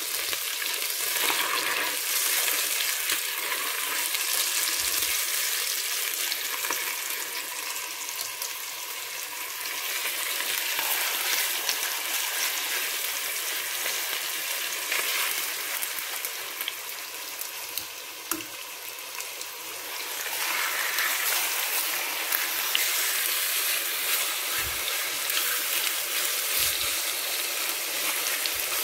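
Chicken escalopes sizzling steadily as they fry in hot browned butter in an enamelled cast-iron casserole. The sizzle eases slightly about two-thirds of the way through, then picks up again.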